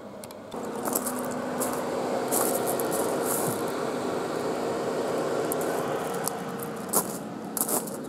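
Renault ZOE's air-conditioning compressor and cooling fan running during remote cabin preconditioning: a steady hum with a low tone that sets in about half a second in and eases about six seconds in. Footsteps crunch on gravel over it.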